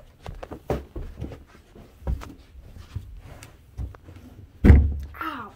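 Scattered knocks and bumps from handling and moving about, with one heavy thump a little before the end, followed by a short sound that falls in pitch.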